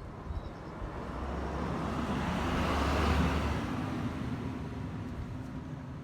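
A motor vehicle driving past, its engine and tyre noise growing louder to a peak about three seconds in and then fading away.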